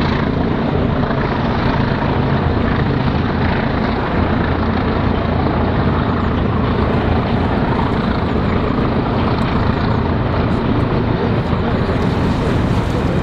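Diesel locomotive engine working hard at full power ('thrash'): a loud, steady engine note with a deep, even drone.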